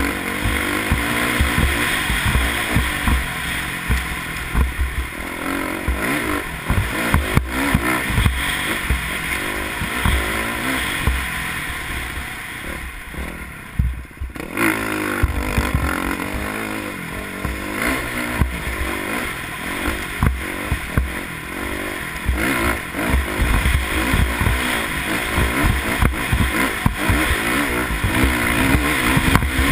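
Dirt bike engine running hard over rough desert ground, its pitch rising and falling as the throttle is worked, with a brief drop in engine sound about halfway through.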